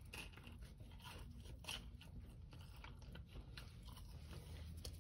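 Faint close-up chewing of a breaded fried chicken finger, with soft, irregular crunches of the coating.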